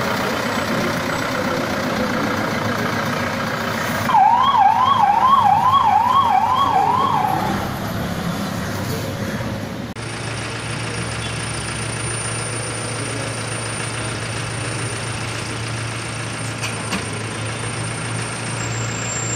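A siren sounds about four seconds in: a rapid wail of repeated rising sweeps, about two a second, lasting roughly three seconds over street noise. Later a vehicle engine idles with a steady low hum.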